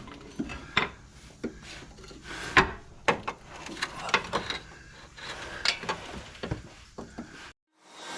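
Irregular clicks, knocks and scraping of metal tools and parts being handled while a car's front axle is taken apart. The loudest click comes about two and a half seconds in, and the sound cuts off shortly before the end.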